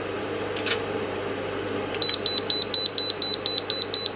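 Datron 4700 calibrator's beeper sounding a steady run of short high beeps, about four a second, starting about two seconds in: its warning as the 500 V high-voltage output is selected. A short click comes first, about half a second in.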